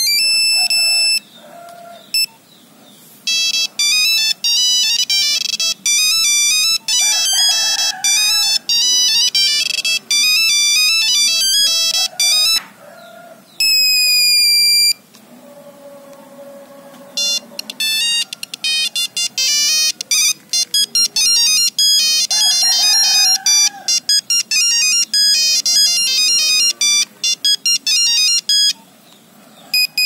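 A Nokia 1100 mobile phone playing its built-in monophonic ringtones through its small speaker: quick, high, beeping tunes, one after another as the ringtone list is scrolled. Each tune is cut off and the next begins, with a short pause near the start and another near the middle.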